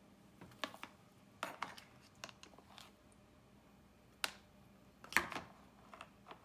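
Small plastic toys being handled in a plastic tub of water: several short, scattered clicks and knocks as a plastic toy cup and a doll are moved about and dipped.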